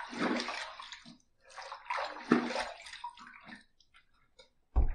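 Water splashed onto the face from cupped hands to rinse off lather after a shaving pass: two rounds of splashing, then scattered drips. A short low thump near the end is the loudest sound.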